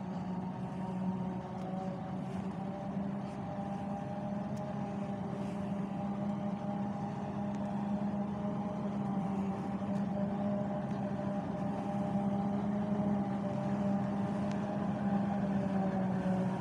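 Self-propelled forage harvester working through standing maize: a steady engine and chopper hum with a constant low tone, growing gradually louder near the end as the machine comes closer.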